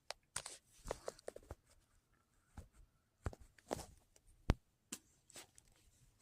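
Scattered light clicks and taps from small objects being handled, with one sharper knock about four and a half seconds in.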